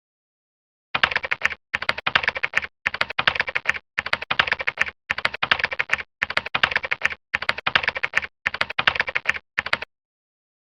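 Rapid keyboard typing in about nine short runs of clicks, each under a second long, with brief dead-silent pauses between them.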